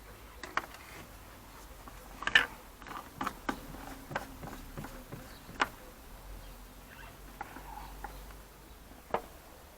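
Scattered clicks and light knocks at irregular intervals, as of hand tools and parts being handled in a car's engine bay, with one louder knock a couple of seconds in and another sharp click near the middle.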